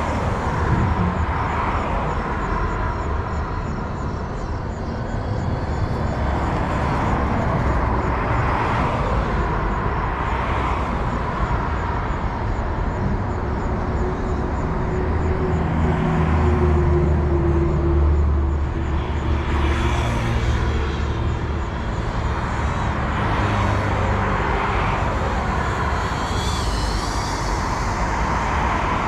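The buzz of a small FPV drone's motors and propellers, rising and falling every couple of seconds as the throttle changes, over a steady outdoor rumble and hiss. A heavier low rumble swells for a few seconds about halfway through.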